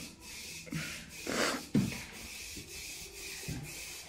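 Aerosol spray-paint can hissing onto a cast-iron radiator, with a louder rush and a low knock about a second and a half in.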